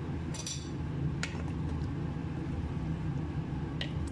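A steady low hum, with three light clicks of a wooden spoon knocking against a metal cooking pot of stew.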